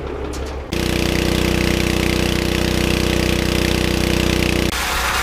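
Engine on a water tanker truck running its pump steadily, with a rattling beat. It starts abruptly a little under a second in and cuts off suddenly near the end.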